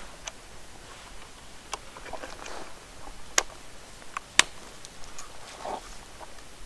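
Plastic trail-camera lid being closed and pressed shut: a few sharp clicks of the housing and catches, the loudest two about three and a half and four and a half seconds in, with soft handling rustle.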